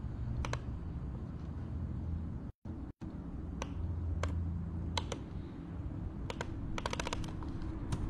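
Sparse keystrokes on a computer keyboard, with a quick run of several keys about seven seconds in, over a steady low hum. The sound cuts out completely twice for a moment near the middle.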